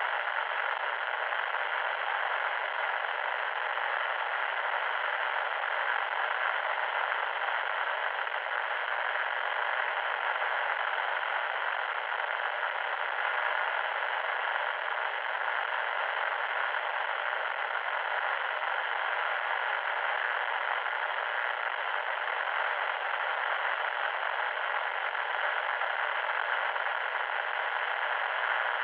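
Loud, steady electronic static: an even, unchanging hiss with no tones or breaks, lacking both deep bass and sharp treble.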